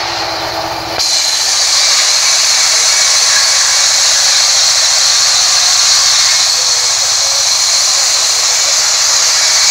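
Band sawmill blade cutting lengthwise through a rain tree slab: a loud, steady high hiss and whine of the saw in the wood, growing louder about a second in.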